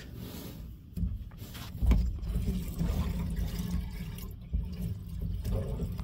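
Water rushing into the hydronic copper pipework as the shut-off valve is opened, refilling the line through the newly pressed zone valve. A low, steady rush that starts about a second in, with a few knocks.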